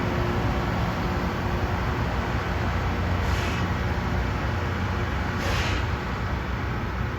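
Loram rail crossing grinder running: a steady machine noise with a low drone and a steady hum, and two brief hissing bursts about two seconds apart.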